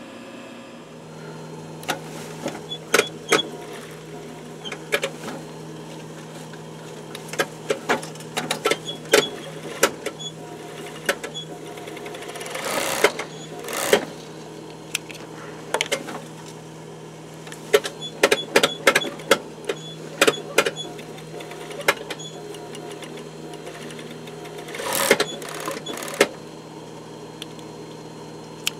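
Industrial Yamato overlock (serger) sewing machine with its motor humming steadily. There are two short runs of stitching, one about halfway through and one near the end, with sharp clicks and knocks from handling the fabric and machine in between.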